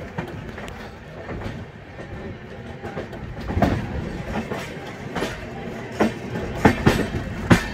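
Wheels of an LHB passenger coach running along the track with a steady rumble and irregular clacks. The clacks grow louder and sharper in the second half as the wheels cross rail joints and points in the junction yard.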